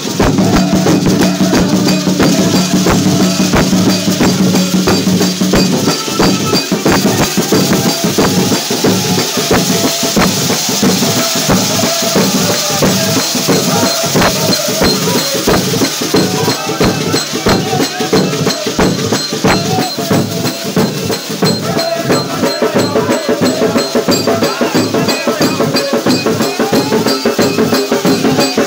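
Large rope-laced hide drums beaten with sticks in a fast, steady rhythm, with rattling shakers and a crowd singing along.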